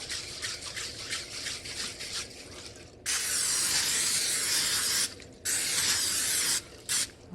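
Aerosol cooking spray hissing onto a skillet in three sprays: a two-second spray about three seconds in, a one-second spray, and a short burst near the end. Before the spraying, a quieter, quick rhythmic rustling.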